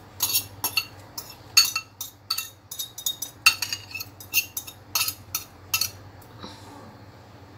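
Metal fork clinking and scraping against a ceramic bowl while stirring chopped green onions and then scraping them out, an irregular run of sharp clinks that thins out about six seconds in.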